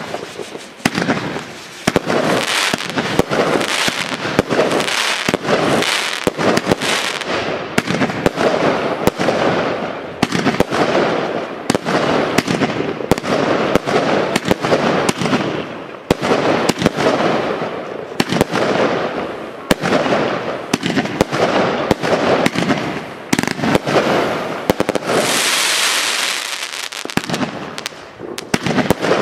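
Eurostar Heavy Nutcase firework battery firing in quick succession: many sharp bangs of launching and bursting shots over an unbroken noisy rush. A louder, higher hissing spell comes a little before the end.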